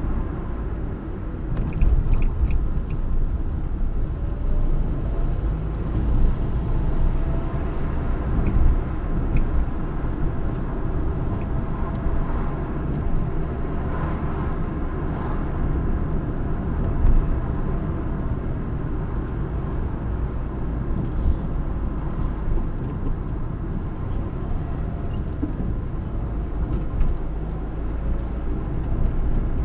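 A moving car's engine and tyre noise: a steady low rumble with a few faint clicks.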